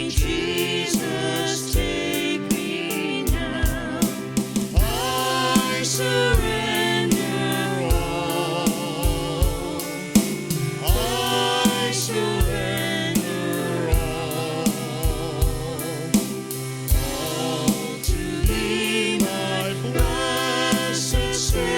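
Gospel worship music: several voices singing sustained, wavering notes over a band, with a steady drum beat about once a second.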